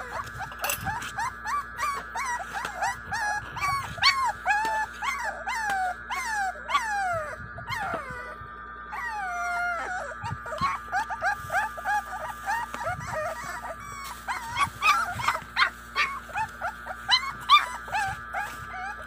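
American Bully puppies whining and yelping over and over in short rising-and-falling cries, over a steady high tone in the background.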